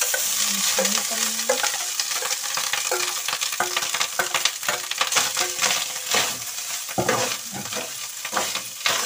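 Cooked rice hitting hot oil in a kadhai and sizzling as it is fried, with a spoon stirring and scraping against the pan in many short clicks. The sizzle eases a little near the end.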